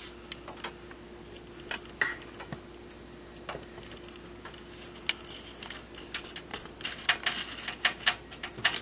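Light scattered clicks and ticks of screws being driven by hand into a PC case fan, coming faster near the end, over a faint steady hum.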